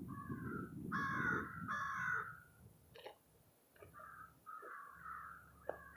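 American crows cawing: a run of three harsh caws in the first two seconds, then after a pause another run of caws near the end. A low wind rumble on the microphone sits under the first couple of seconds.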